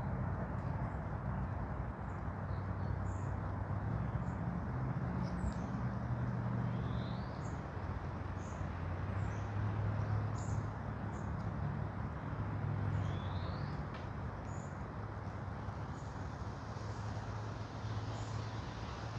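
Forest ambience: birds chirping, with short high chirps scattered throughout and a rising call about every six seconds, over a steady rustling hiss and a low droning hum.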